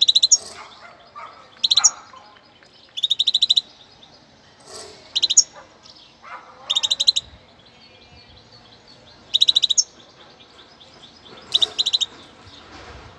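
Young European goldfinch singing: short, rapid trilled phrases about half a second long, repeated every second or two with brief pauses between.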